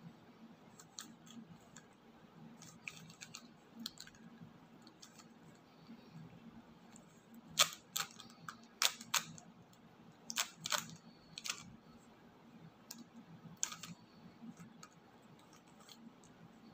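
Plastic clicks and clacks of a 3x3 Rubik's cube's layers being twisted by hand, in irregular runs of quick turns, loudest in a flurry about halfway through.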